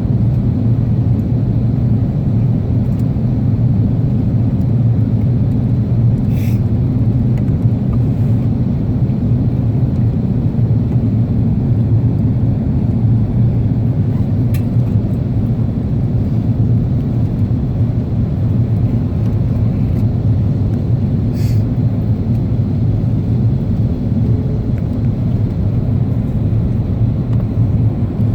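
Steady low drone of engine and airflow noise inside the cabin of an Airbus A330 airliner in flight, with two faint ticks partway through.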